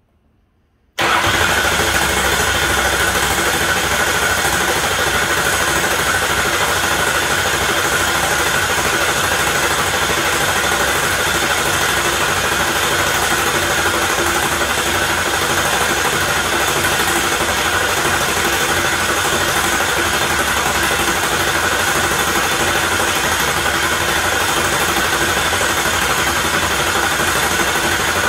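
Ford 6.0 Powerstroke V8 diesel being turned over by its starter motor. The steady cranking starts suddenly about a second in. It is building pressure in the high-pressure oil system before the engine's first start.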